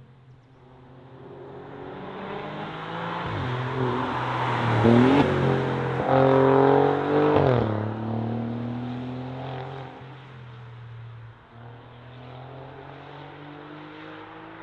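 Alfa Romeo Giulia Quadrifoglio's twin-turbo V6 through a Pogea Racing exhaust, coming past under hard acceleration. Engine pitch climbs and drops sharply at upshifts about four and seven and a half seconds in, loudest as the car goes by, then fades as it pulls away, rising again under power in the distance.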